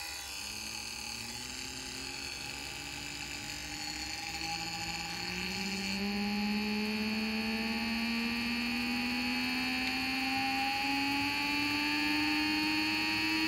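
3D-printed brushless DC motor running at 20 volts and spinning up: a hum whose pitch rises steadily as it gains speed, over a steady high-pitched whine, growing slowly louder.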